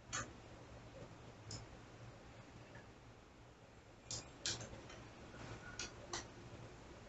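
Six sharp clicks, irregularly spaced and the last four in two close pairs, from a TenPoint crossbow being cocked with its ACUdraw crank mechanism.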